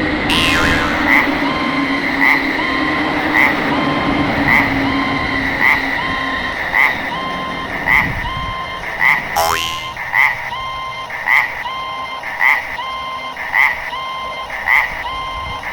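Japanese railroad crossing warning bell ringing in a steady, evenly spaced rhythm, a little under once a second, while the rumble of a passing train fades out over the first six seconds. A brief swish is heard about nine seconds in.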